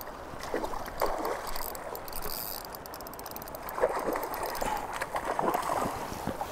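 A hooked coho salmon splashing at the surface of the river as it is played in, in irregular bursts, over the steady rush of fast river water.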